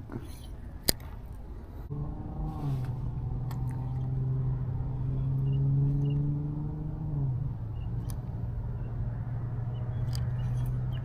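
A steady engine hum comes in about two seconds in, its pitch rising slightly and then dropping a little about seven seconds in before running on steadily.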